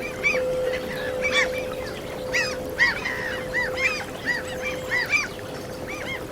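A flock of gulls calling, many short arched cries overlapping at about two a second, over one steady held flute note.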